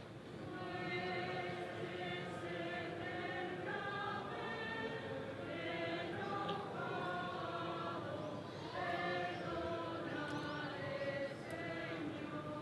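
A choir singing a slow, solemn piece in long held notes, with a brief pause about eight seconds in.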